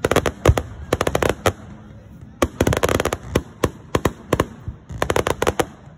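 Aerial fireworks going off: sharp bangs and fast runs of crackling from glittering shells, in three dense flurries near the start, in the middle and near the end.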